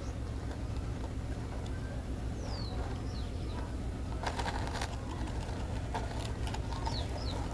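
A few short, falling bird chirps over a steady low rumble, with scattered clicks and rustling about halfway through.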